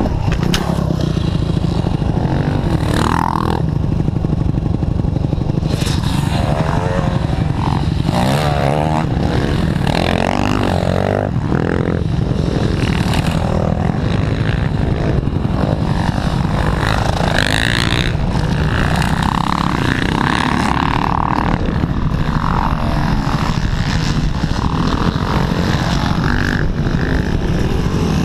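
Dirt-bike engines on a motocross track heard through a helmet camera: a steady low rumble with engines rising and falling in pitch as bikes pass, loudest in the first half.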